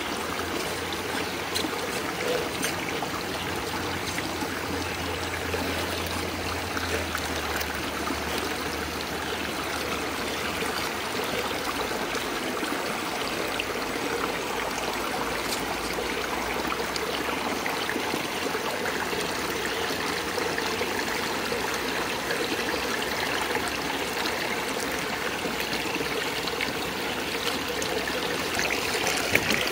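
Shallow woodland stream running steadily over rocks, with a trickling sound.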